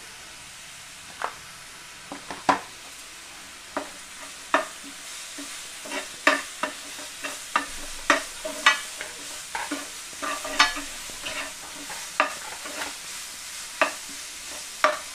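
A spatula stirs chopped onions, chillies, garlic and spice powders in a non-stick frying pan. Sharp scrapes and taps on the pan come over a low steady sizzle, few at first and then several a second from about six seconds in.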